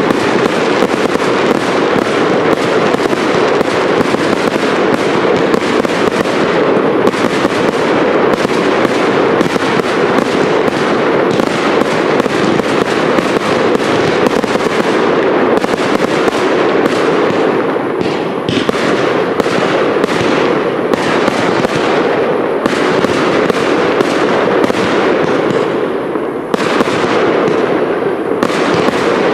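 Firework cakes (multi-shot batteries) firing in a continuous barrage: a dense, unbroken stream of rapid bangs and crackling, with a brief lull near the end.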